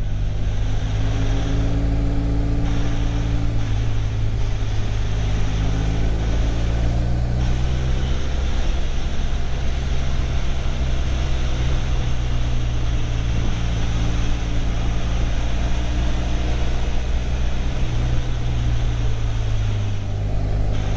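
Motorcycle engine running at a steady road cruise, its note shifting slightly a few times with the throttle, over a constant rush of wind and tyre noise on a wet road.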